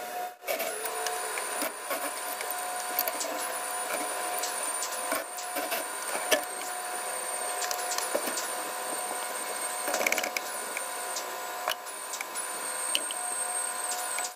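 Disassembly work on a tractor loader's hydraulic valve: a high-pitched power-tool whine in about eight short runs, each dropping in pitch as it stops, with scattered clicks and knocks of tools on metal over a steady hum.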